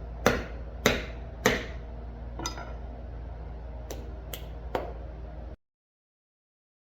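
Sharp strikes: three hard hits about half a second apart, then four lighter ones, over a steady low hum. The sound cuts off abruptly about two-thirds of the way through.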